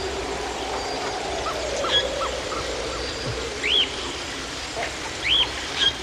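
Several birds calling over a steady jungle background: short hooked notes in the first half, then a loud arching whistled call twice, about a second and a half apart.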